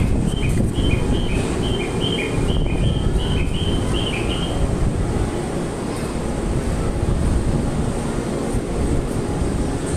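Train rumbling steadily at the platform. For about the first four and a half seconds a run of short high chirps alternates between two pitches, about three a second, over the rumble.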